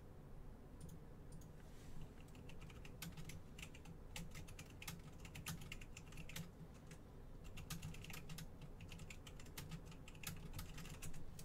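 Faint typing on a computer keyboard: irregular key clicks, sparse at first and then several a second from about two seconds in.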